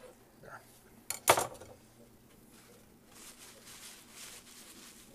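A short clatter of cutlery against a dish about a second in, with a bright ringing clink, followed by faint rustling.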